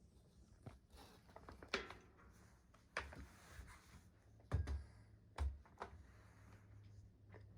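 Scattered soft rustles and knocks of a woven plastic shopping bag being moved about by a cat, with two dull thumps a little past the middle.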